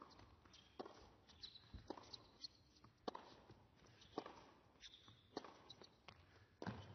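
Faint tennis rally: the serve and racket strokes on the ball come as sharp hits about once a second, with short high shoe squeaks on the hard court in between.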